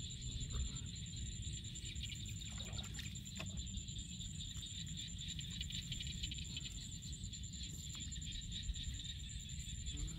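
Bare hands digging and squelching in wet mud and shallow water while hunting mud clams, with a few faint splashes and clicks. Under it run a steady low rumble and a steady high thin whine.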